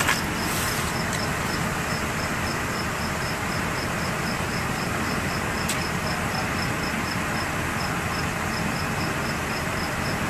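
Steady low rumble of idling emergency-vehicle engines, with a cricket chirping in a high, even rhythm about four times a second.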